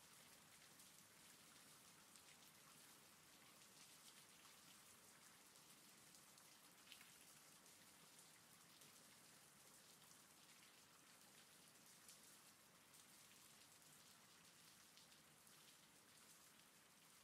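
Faint, steady rain, a soft patter of many small drops, with one slightly louder tick about seven seconds in.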